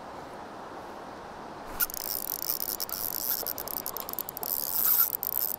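Spinning reel buzzing and clicking rapidly as a coho salmon is hooked and fought on the line. It starts suddenly about two seconds in and gets louder toward the end, over the steady rush of the river.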